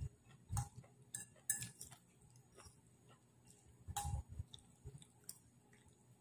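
A metal fork clinking and tapping on a plate of noodles, with chewing between; scattered clicks, the loudest about four seconds in.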